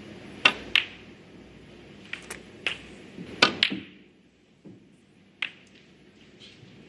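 Snooker balls clicking during a break: the cue tip striking the cue ball and balls knocking into each other. The sharp clicks come several in quick pairs over the first few seconds, with one more past the middle.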